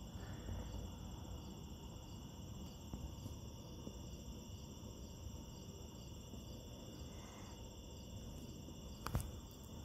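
Steady night chorus of crickets and other insects trilling, over a faint low rumble. A single sharp click near the end.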